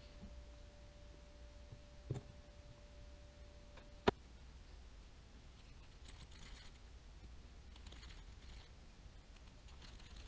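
Small parts and tools being handled during reel assembly: a soft knock about two seconds in, then one sharp click about four seconds in, followed by faint scraping and rustling. A faint steady tone stops at the click.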